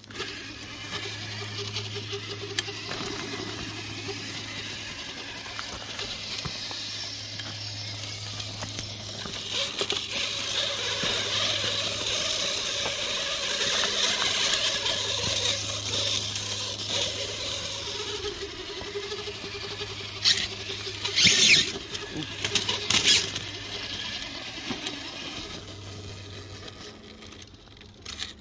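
Whine of an RC rock crawler's electric motor and gears as it crawls up granite boulders, louder for a while in the middle, with a few short, sharp scrapes about twenty seconds in.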